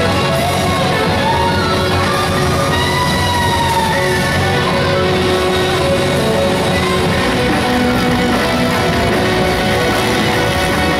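Loud rock-style music.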